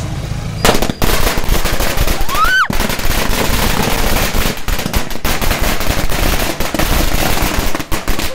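A long string of firecrackers, a 1000-cracker wala, going off in a rapid, unbroken crackle of bangs. It starts a little under a second in.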